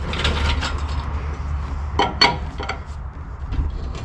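Light metallic clinks and knocks from a chain-hung engine hoist as its load is lowered, with two sharp clinks about two seconds in, over a steady low hum.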